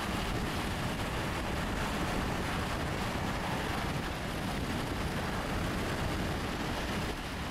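Steady rushing road and wind noise of a vehicle on the move.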